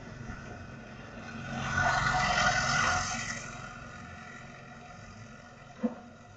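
A motorcycle passing close by and riding away, its engine noise swelling about two seconds in and then fading.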